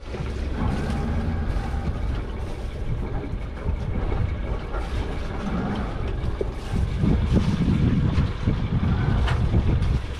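Sailboat's diesel engine running with a steady low rumble, with wind buffeting the microphone.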